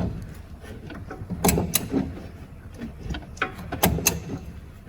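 Engine turned over slowly by hand with a wrench on the crankshaft, engine not running: sharp metallic clicks, two pairs of them, during an inspection of the automatic gearbox's flywheel for wobble.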